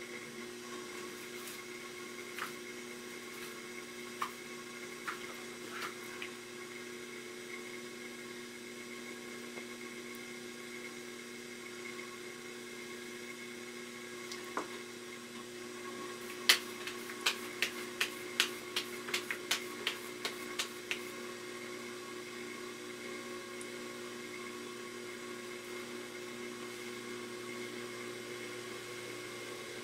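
An electric potter's wheel runs with a steady motor hum while clay is thrown on it. About halfway through comes a quick run of about a dozen sharp clicks, a few scattered clicks having come earlier.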